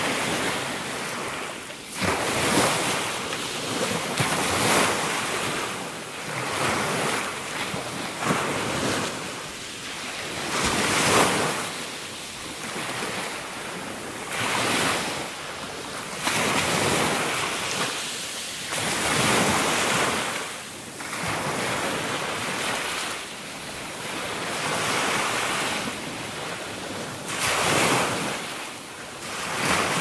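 Small ocean waves breaking and washing up a pebble beach, the surf swelling and falling back every two to four seconds.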